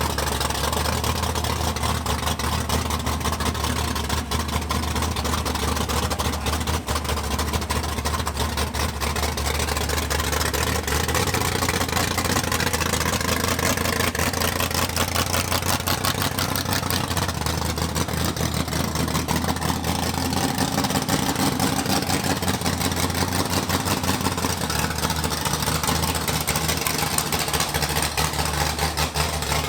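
V8 engine of a first-generation Pontiac Firebird Trans Am drag car idling steadily through its exhaust, with the loping, uneven idle of a big camshaft.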